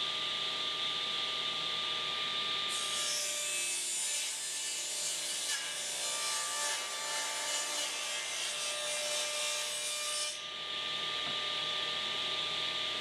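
Table saw running with a steady whine as its blade cuts through a 2x4 fed on the miter gauge at 45 degrees. The cut adds a hiss from about three seconds in until about ten seconds in, then the saw runs on freely.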